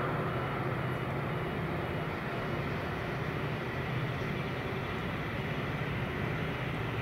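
Diesel train approaching slowly, its engine a steady low drone.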